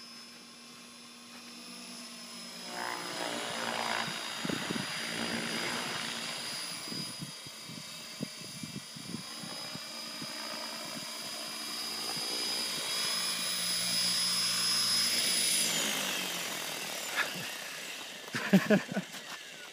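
Small radio-controlled helicopter flying: a high electric-motor whine with a buzzing rotor whose pitch wavers up and down. It cuts off about sixteen seconds in, followed by a few sharp knocks near the end.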